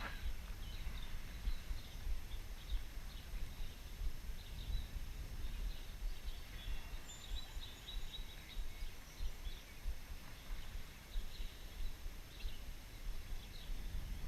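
Wind buffeting the microphone in uneven gusts, with faint bird chirps now and then and a brief high whistle about halfway through.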